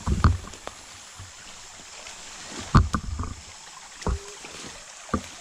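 A creek running steadily, with several loud, dull thumps over it: one at the start, a cluster about three seconds in, and single ones about four and five seconds in.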